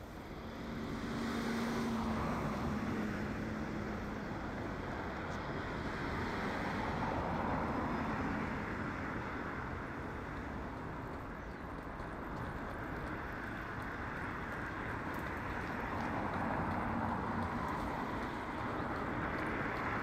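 Steady rush of distant road traffic, swelling and easing every few seconds as vehicles pass, with a brief low engine hum about a second in.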